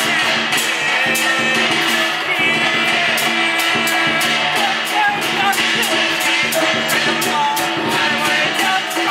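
Music with a singing voice and guitar over a steady beat.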